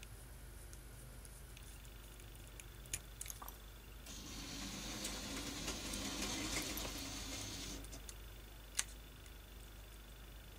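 Small parts being handled with a jeweller's screwdriver: a few faint light clicks, and a soft rustling hiss that swells and fades over about four seconds in the middle.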